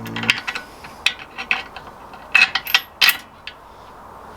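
Metal engine parts and tools clinking and knocking as they are handled, a run of sharp metallic clicks that is loudest between about two and a half and three seconds in.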